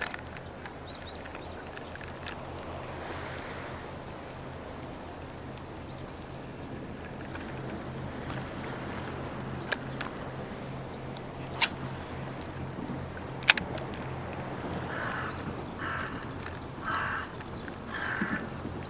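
Outdoor harbour-side ambience: a steady high insect drone over a low hum, with three sharp clicks in the middle and a run of short sounds near the end.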